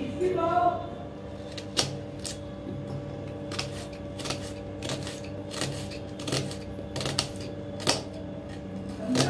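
Kitchen knife cutting red onion on a stone countertop: sharp clicks of the blade on the stone at an uneven pace, about one or two a second. A brief pitched sound comes just after the start, over a faint steady hum.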